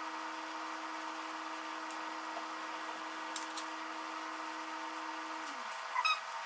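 A steady machine hum whose lower tones slow and stop about five and a half seconds in. Over it come a few light clicks of a table knife on a plate, then a short knife squeak on the plate near the end.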